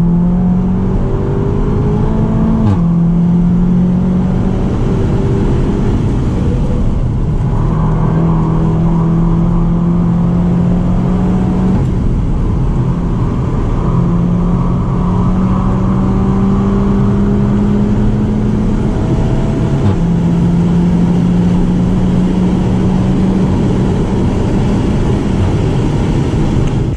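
Seat Leon Cupra 290's turbocharged 2.0-litre four-cylinder under hard acceleration, heard inside the cabin over steady wind and tyre noise. The engine note climbs slowly through the gears, with sudden drops in pitch at DSG gear changes about three seconds in and again near twenty seconds, and a short break in the note around twelve seconds.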